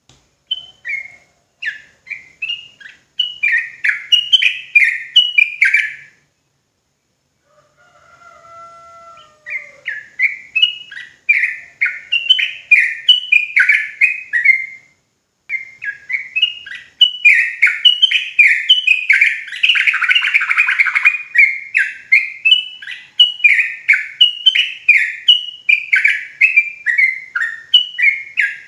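Yellow-vented bulbul (trucukan) singing its rapid rolling 'ropel' song: long runs of short, bright, falling notes, about three a second. The song comes in three stretches, with brief pauses about six seconds in and again at fifteen seconds.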